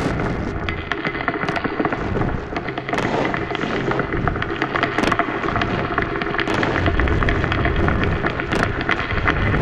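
Experimental noise music: a dense wall of crackling, static-like noise, thick with sharp clicks and pops over a rumbling low end.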